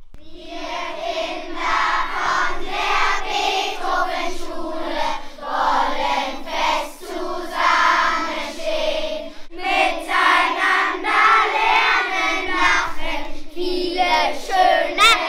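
A large group of children singing together in unison.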